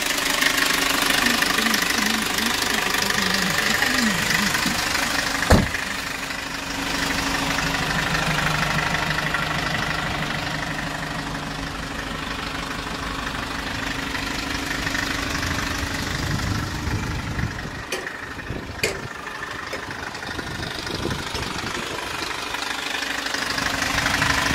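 Kia Bongo III truck's diesel engine idling steadily. A single sharp bang comes about five and a half seconds in, and there are two faint clicks later on.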